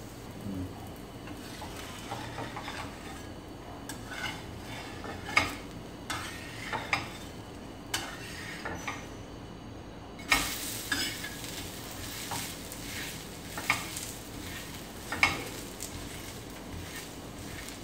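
Oil sizzling under a green gram dosa on a hot dosa pan, with a spatula scraping and tapping against the pan in scattered strokes, a few of them sharp and loud.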